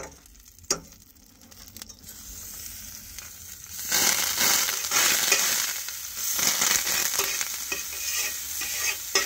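Butter sizzling and crackling as it melts in a hot stainless steel frying pan, with a knife pushing the pats around. It starts with a couple of sharp clicks, then the sizzle builds and grows much louder about four seconds in.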